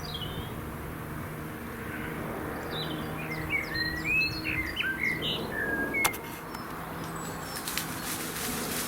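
A small songbird singing a quick, varied phrase of short chirps and slurred whistles, starting about three seconds in. A sharp click follows about six seconds in, over a steady low background hum.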